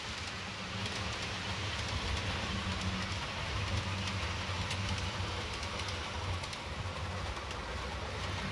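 Steady low hum over a faint hiss, with a few faint ticks.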